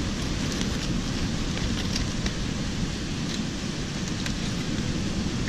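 Steady rushing beach ambience of wind and surf, with the wind buffeting the microphone and a few faint clicks.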